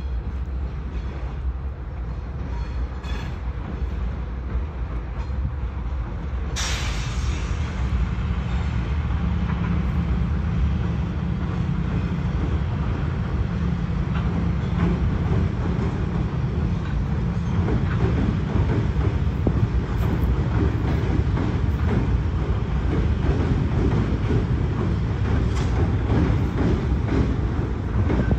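Freight train rolling past, a steady rumble of cars on the rails with some wheel clatter. It gets louder and brighter about seven seconds in.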